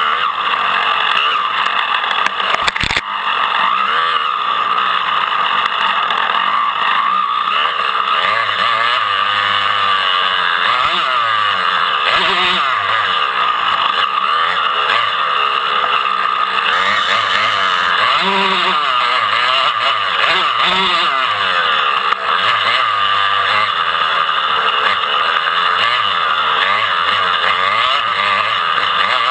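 Several dirt bike engines revving, their pitch climbing and falling again and again as they accelerate and back off, one over another.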